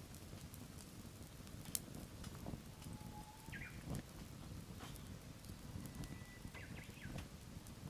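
Firewood burning, with scattered sharp crackles and pops, the loudest a little under two seconds in. A few short bird chirps and a thin whistled note come in the background near the middle and toward the end.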